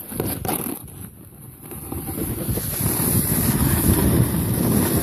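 Wind rushing over a handheld phone's microphone and a snowboard sliding on groomed snow, growing louder from about two seconds in as the rider picks up speed. There are a few knocks from handling the phone near the start.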